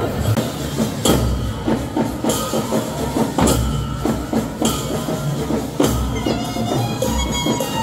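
Music of drums and jingling metal percussion, with a heavy beat about once a second. A piping wind instrument joins near the end.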